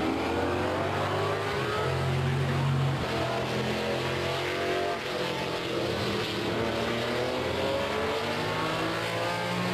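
Vintage sports-racing car engines at racing speed on the circuit. The engine notes rise and fall over and over as the cars accelerate and lift through the corners, with more than one engine heard at once.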